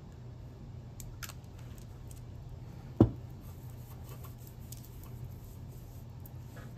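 Faint small clicks of a glass dropper bottle being handled, then one sharp knock about three seconds in as it is set down on the table, over a steady low hum.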